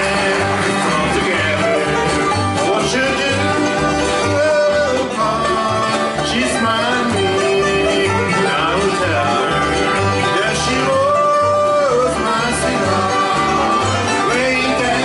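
Bluegrass band playing an instrumental passage on string instruments, with a steady bass beat about twice a second under a melody line that slides between notes.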